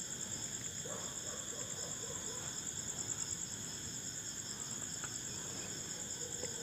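Crickets chirping in a steady, continuous high-pitched chorus.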